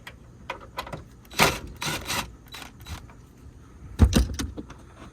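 Parts of the car's interior trim being handled and fitted by hand: scattered clicks and rustles, with a heavy thump about four seconds in.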